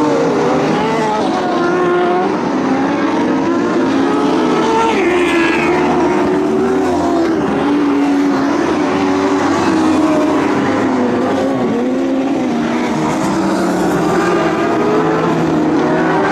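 Engines of several Lightning Sprint mini sprint cars racing together: a continuous overlapping engine note whose pitch swings up and down as the cars lift and accelerate through the turns.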